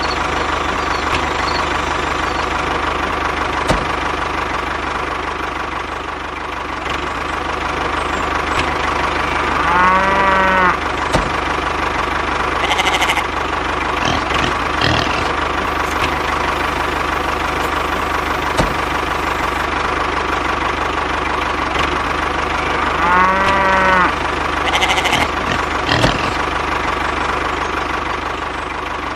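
A DIY mini tractor's small engine running steadily with a steady whine. Over it a cow gives two short moos, about ten seconds in and again near 23 seconds.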